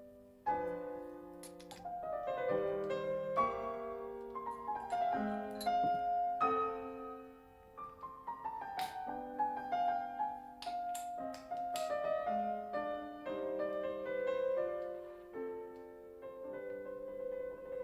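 Background piano music, a melody over chords at a moderate pace.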